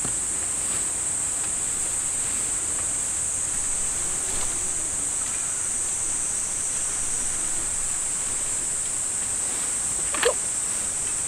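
Steady high-pitched chorus of insects. Faint rustling of tent fabric being unfolded, and one brief sharp sound about ten seconds in.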